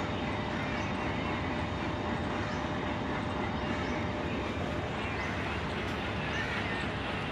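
Diesel-electric locomotive running at a station platform: a steady, even rumble, with a faint steady hum that fades out about three and a half seconds in. A few short high chirps come near the end.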